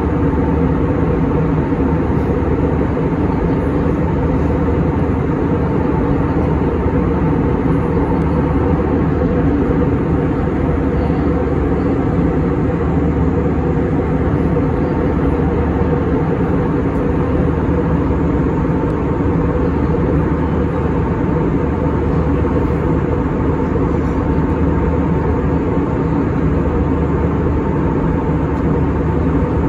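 Steady cabin noise of an Airbus A321 airliner in cruise, heard from inside the cabin: an even rush with a few steady low hums running through it, unchanging throughout.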